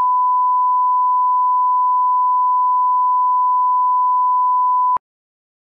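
Steady 1 kHz reference test tone, the line-up tone played with colour bars at the head of a tape. It holds at one pitch and cuts off with a click about five seconds in.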